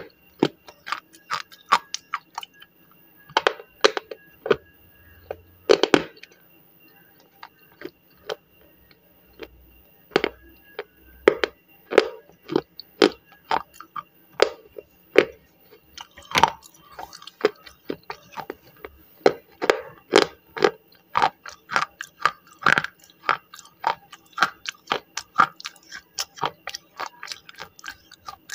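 Close-up crunching and chewing of slate pencil, a brittle pressed-clay stick, with sharp crisp crunches, sparse at first and then steadier at about two a second in the second half.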